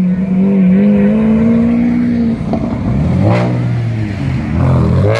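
A Lamborghini Aventador SV's V12 running at steady revs as it pulls away. About two and a half seconds in, a Chevrolet Camaro's engine takes over with a deeper note, revving up and down as it passes. A brief sharp burst comes at the very end.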